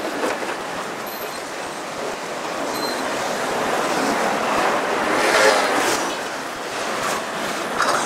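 City street noise: a steady wash of road traffic, swelling louder about five seconds in.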